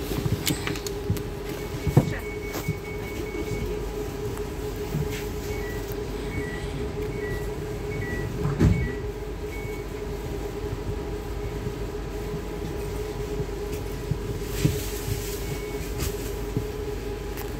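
Inside an ES2G Lastochka electric train: the car's steady hum over a low rumble, with two sharp knocks and a run of short high beeps in the first part.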